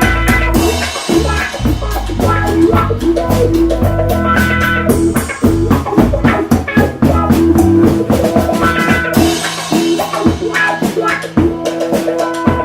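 Funk-rock band jam: a drum kit playing a steady beat under bass and electric guitar.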